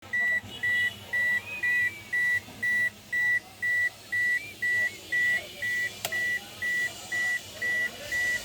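Electronic beeper sounding steadily: short, high beeps of one pitch, about two a second, with a single sharp click about six seconds in.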